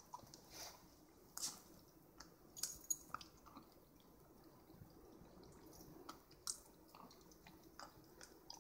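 Keeshond puppy licking and gnawing an ice cube: faint, scattered clicks and smacks of tongue and teeth on the ice.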